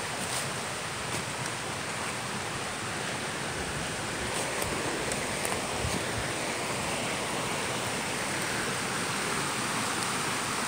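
A normally dry woodland creek in flood after torrential rain, fast water rushing over rocks in a steady, even noise that swells slightly about four seconds in.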